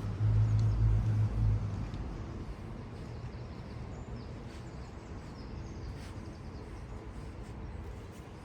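A deep low rumble, loudest in the first second and a half, then easing into a steady background hum. Small birds chirp faintly now and then.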